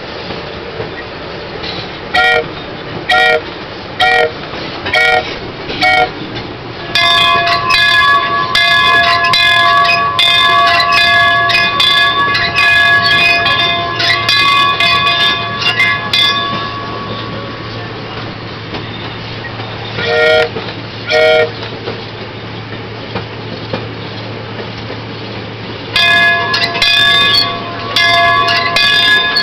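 Fairmont A6 motor car's horn, a chord of several notes, sounding five short toots and then a long blast of about ten seconds. Two more short toots follow, then another long blast near the end, all over the steady running rumble of the car on the rails.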